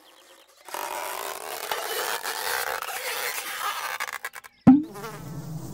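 Cartoon sound effect of a plant shooting up out of the ground: a long noisy rustle for about three and a half seconds, then, near the end, a sudden loud pop whose pitch drops quickly as the flower bursts open, followed by a low steady hum.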